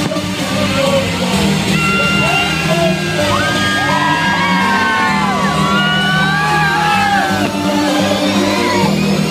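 Loud party music playing in a large room, with a crowd yelling and whooping over it.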